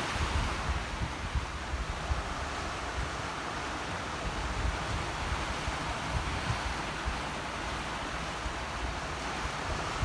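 Sea waves, a steady rush of surf, with wind buffeting the microphone in low gusts.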